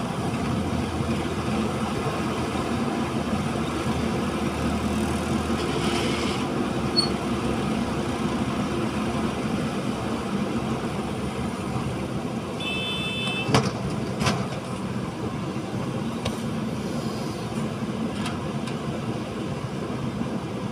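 Diesel engines of a JCB 3DX backhoe loader and a farm tractor running steadily. About two-thirds of the way through there is a brief high tone, then a couple of sharp clanks.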